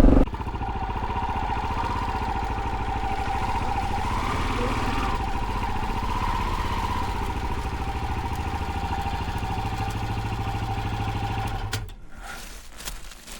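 KTM 640 Adventure R's single-cylinder engine running steadily as the motorcycle is ridden, then cutting off abruptly near the end.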